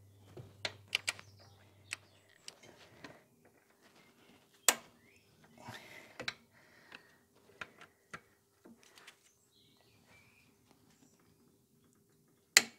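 A socket wrench works on the alternator mounting bolts during torquing. There are scattered light metallic clicks and knocks, and two sharper clicks: one about five seconds in and one near the end.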